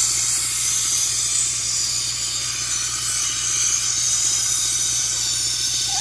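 Compressed shop air hissing steadily as it pressurizes a cylinder of a 2009 Toyota Corolla's 1.8 L four-cylinder engine through the spark plug hole. This is a pressure test for a blown head gasket between cylinders, which the mechanic takes for a cylinder-to-cylinder leak.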